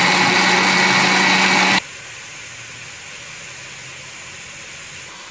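Electric blender motor running at full speed, grinding tomatoes and yogurt into a paste, then cutting off suddenly about two seconds in. A steady, much quieter hiss follows.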